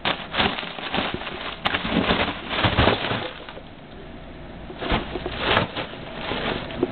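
French bulldog biting and pawing at a balloon: irregular bursts of scuffing and rubbing noise, with a quieter stretch near the middle.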